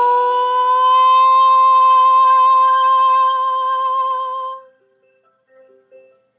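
A woman's voice holds one long sung note for about five seconds, wavering slightly toward the end, then cuts off. It is followed by a few soft, sparse instrumental notes of the accompanying music.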